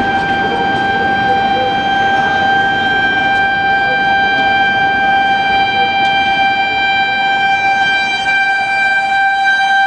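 Locomotive horn sounding one long, steady note over the noise of a train running at high speed.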